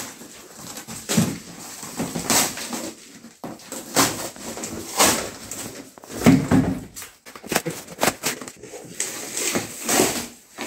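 Cardboard shipping box being torn open and its flaps pulled back: irregular ripping, scraping and rustling of cardboard, with a few knocks.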